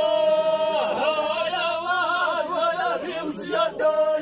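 Unaccompanied male voice singing Ahidous-style: one long held note with vibrato for about a second, then a wavering, ornamented melodic line. The frame drums are silent.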